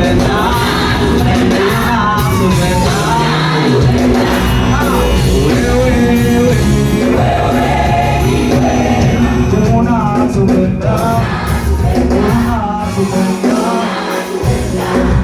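A choir singing with instrumental accompaniment: several voices carrying a wavering melody over a steady bass line.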